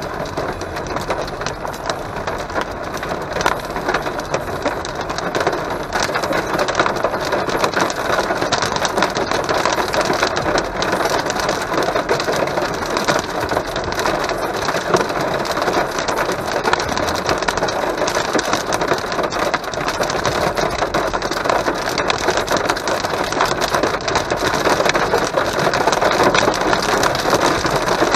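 Heavy rain mixed with hail drumming on the car's roof and windshield, a dense, steady clatter of impacts heard from inside the car.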